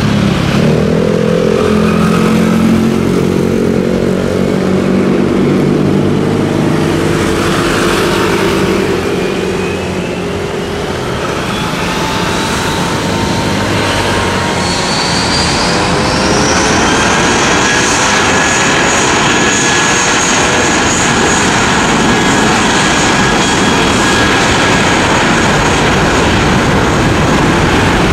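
Airbus A320-232's IAE V2500 jet engines under a heavy, loud roar. Low engine tones fall away at first, then a whine rises from about nine seconds in as the engines spool up to takeoff thrust, settling into a steady high whine a few seconds later.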